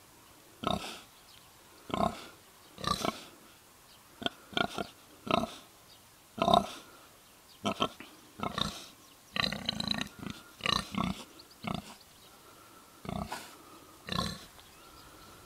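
Kune Kune pigs grunting: a run of about twenty short grunts, one every half second to a second.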